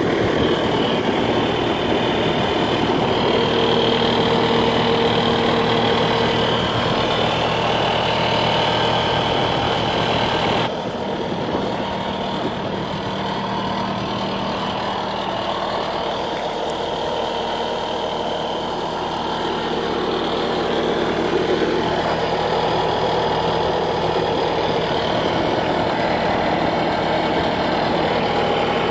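Bobcat S650 skid steer loader's diesel engine running steadily at idle. About eleven seconds in the sound drops and turns duller, then grows a little louder again later on.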